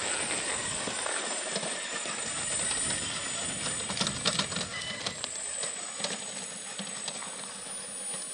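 RC4WD 1/14-scale Earth Hauler 797F mining truck driving over gravel on its rear-wheel brushless motors: its big rubber tyres crunch and rumble across the stones, with a steady high whine and sharp clicks of pebbles, thickest about four seconds in.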